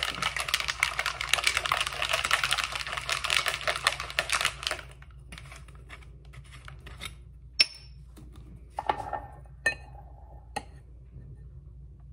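Stainless steel cocktail shaker shaken hard, its contents rattling fast for about five seconds. Then a few separate sharp clicks and knocks as the shaker is handled.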